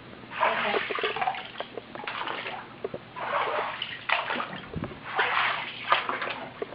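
Floodwater about 18 inches deep sloshing and splashing in repeated surges roughly once a second, as someone wades through it.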